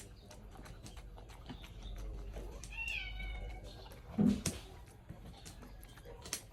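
A cat meows once, a short call that falls slightly in pitch about three seconds in, followed a second later by a single thump; light clicks sound throughout.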